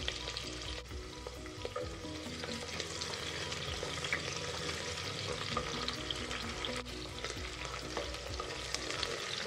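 Onion quarters sizzling on a high flame in hot mustard oil in a steel pressure cooker, stirred with a wooden spoon: a steady fine crackle with small clicks.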